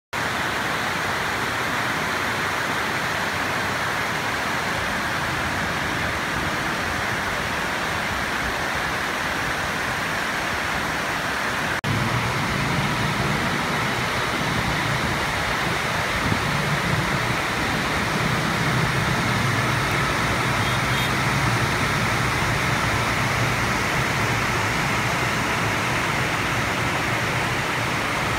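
Heavy rain pouring steadily, an even hiss. From about twelve seconds in, the low rumble of road traffic runs beneath it.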